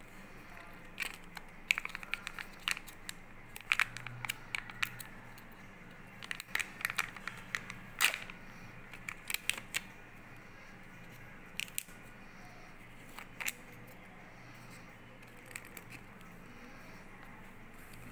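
Hands handling Kinder Joy packaging: the plastic egg half-shells and the paper instruction leaflet give scattered short clicks, crackles and rustles, busy for the first ten seconds or so and only occasional after that.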